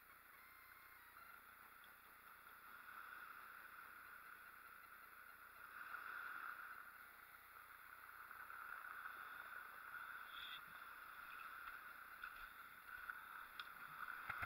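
Faint sea water washing and lapping at the shoreline, swelling and easing every few seconds.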